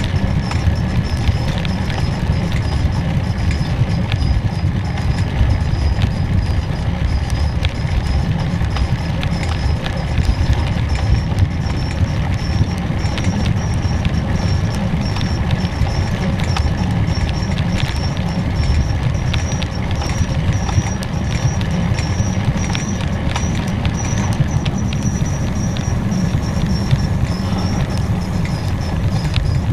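Bike-mounted ride along a paved road: steady wind rumble on the microphone with continual small rattling clicks and a thin, high, slightly wavering whine.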